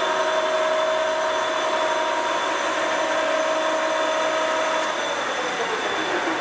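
Century B-40 heavy-duty gap bed lathe running at 1,000 RPM, its top spindle speed, with a steady whine. About five seconds in, the whine falls in pitch as the spindle slows down.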